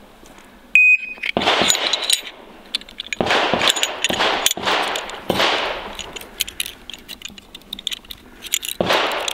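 A shot timer's short start beep about a second in, then heavy breathing through an S10 gas mask, a loud hissing rush every two seconds or so. Small metallic clicks of Glock 19 slide and frame parts being handled come in between the breaths near the end.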